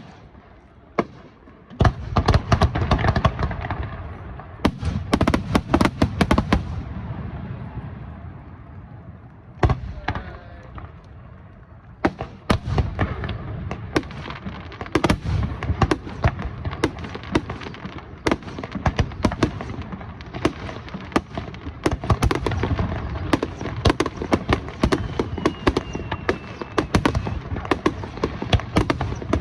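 Fireworks display: shells bursting in rapid volleys of booms and crackles. The bursts thin out for a few seconds about a quarter of the way in, then come thick and fast again.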